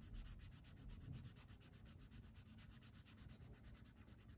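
Felt-tip marker colouring in on paper: a faint, rapid scratching of back-and-forth strokes.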